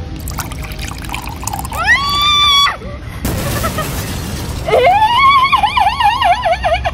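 A woman's high-pitched, wavering shriek of 'eeeeeh!' in shock as her frappuccino spills down her front. Before it come a short rising cry and about a second of splashy rushing noise.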